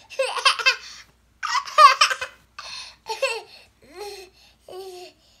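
A toddler laughing in a few high-pitched bursts during the first three seconds, then giving shorter, softer vocal sounds near the end.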